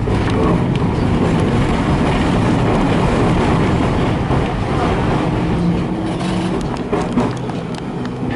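W8-class tram running along the track, heard on board: a steady rumble and rattle of wheels on rail and running gear. A faint steady tone joins about five seconds in and fades a second and a half later.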